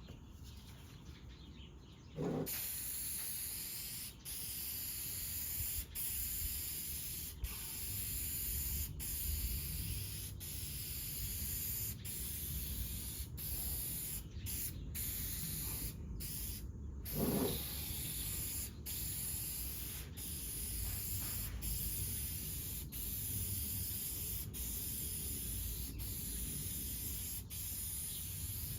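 Aerosol spray can hissing as a second coat of finish is sprayed on, starting about two seconds in, with short breaks about every second and a half between passes.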